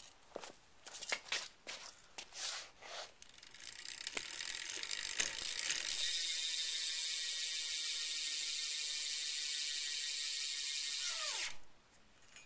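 BMX rear hub (Amber Reign) ratcheting as the wheel is spun for a hub check, its pawls clicking. Scattered clicks at first build into a fast, steady buzz of ticking from about six seconds in, which cuts off suddenly near the end.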